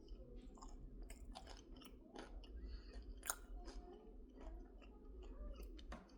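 A person chewing crunchy kettle-cooked potato chips close to the microphone: a quiet, irregular string of sharp crunches.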